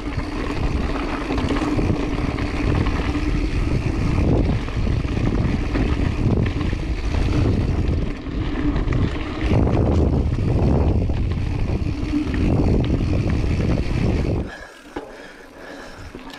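Mountain bike ridden fast down dirt singletrack: tyre and bike noise over the trail with heavy wind rumble on the microphone. The noise drops much quieter about two seconds before the end.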